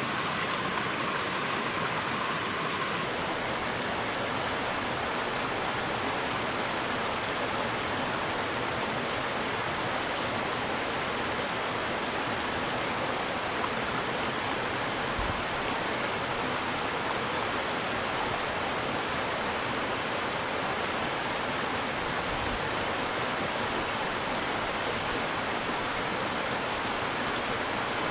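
Steady, even rushing of running water, with no let-up; its tone shifts slightly about three seconds in.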